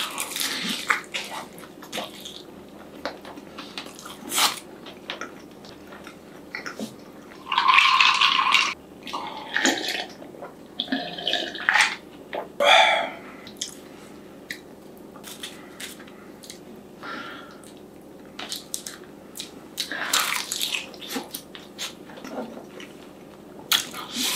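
A person eating close to the microphone: bites and chewing with short clicks of chopsticks and dishes. Around the middle a drink is taken from a glass jug, with liquid sounds and swallowing.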